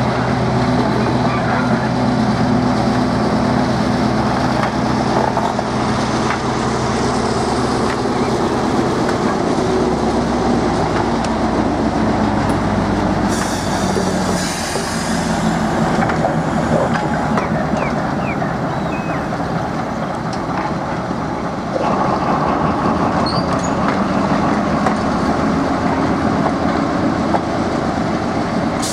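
Small diesel shunting locomotive running steadily at low speed while moving railway wagons, with the engine's steady hum under the rolling of the stock. A short hiss about halfway through.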